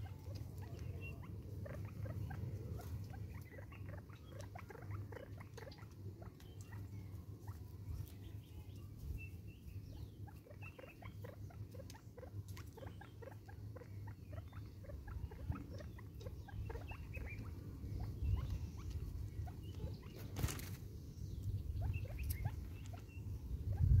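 Natal spurfowl pecking at seed in a clear plastic tub: a quick, irregular patter of small taps and clicks, with one sharper knock near the end, over a low rumble of wind on the microphone.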